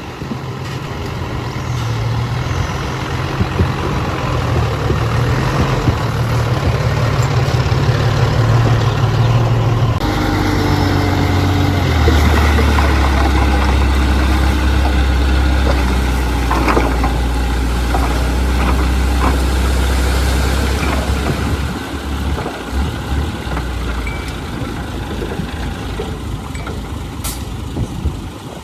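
Heavy diesel machinery engine running steadily. Its note changes abruptly about ten seconds in and again about twelve seconds in, and it gets quieter for the last several seconds.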